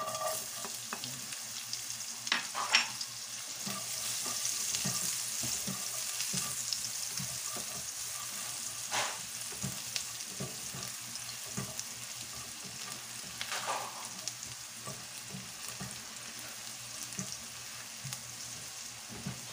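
Chopped garlic sizzling in hot cooking oil in a nonstick wok as it is sautéed and stirred with a spatula. The sizzle starts as the garlic goes in, is strongest a few seconds in and then settles, with a few sharp scrapes of the spatula against the pan.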